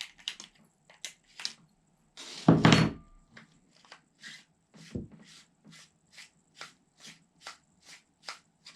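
Plastic clicking as the inner core of an Avatar gas airsoft grenade is unscrewed from its housing with the dog-tag key tool: a loud knock about two and a half seconds in, then even clicks about two a second.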